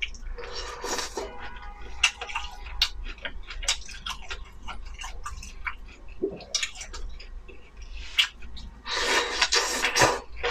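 Close-up eating sounds: wet chewing with many sharp lip-smacking clicks, and two longer slurps of instant noodles, one about half a second in and a louder one near the end.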